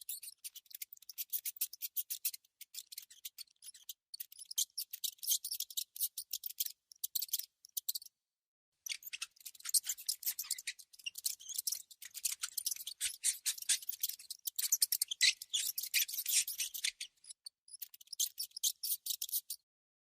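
A mouse making rapid, scratchy clicking in bursts with short pauses, the sound thin and high-pitched.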